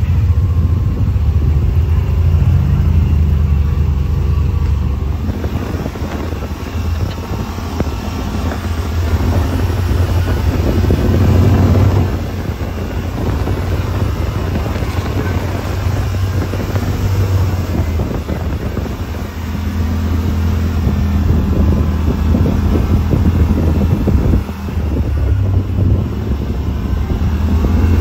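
Yamaha RMAX side-by-side's engine running while driving the trail, its note rising and falling with the throttle, with wind buffeting the microphone.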